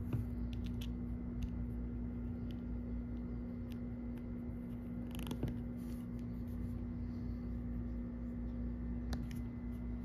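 Small plastic petit blocks being handled and pressed onto a plastic baseplate: scattered light clicks and taps, the sharpest about five seconds in and another near the end. A steady low hum runs underneath.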